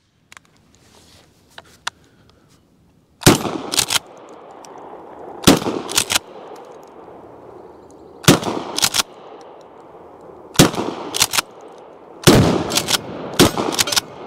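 Mossberg 590 pump-action shotgun in .410 bore firing a string of shots, about two to three seconds apart, starting about three seconds in; each shot is followed closely by two sharp clacks.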